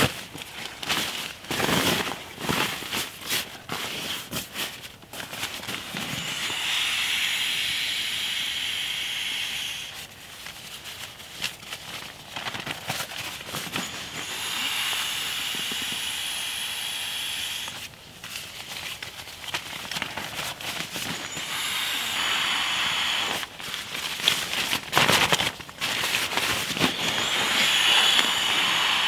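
Air rushing into a Therm-a-Rest NeoAir inflatable sleeping mat as its pump sack is pressed down, in four steady rushes of three to four seconds each. Between the rushes comes crinkling and rustling of nylon fabric.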